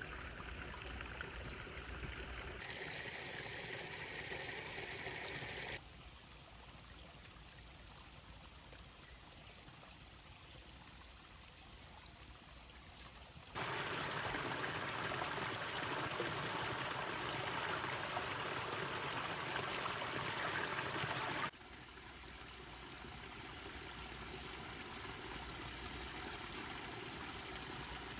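Steady rush of running water. It is heard in several separate shots, and the level and tone change abruptly at each cut; it is loudest for about eight seconds past the middle.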